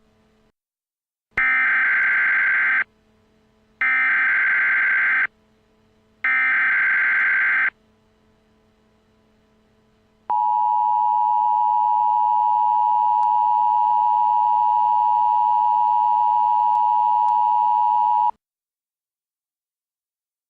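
Emergency Alert System alert tones: three identical bursts of buzzing SAME digital header data, each about a second and a half long, then the steady two-tone EAS attention signal held for about eight seconds before it cuts off abruptly.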